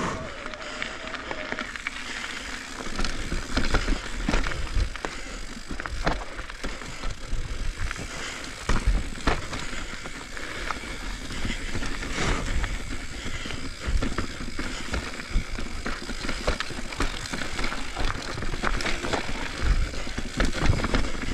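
Full-suspension mountain bike moving over rough trail: continuous tyre and trail noise with frequent rattles and knocks from the bike over bumps, and a low rumble throughout.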